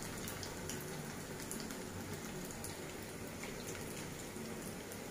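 Bread rolls deep-frying in hot oil in an aluminium kadhai: a steady soft sizzle with many fine crackles from the bubbling oil.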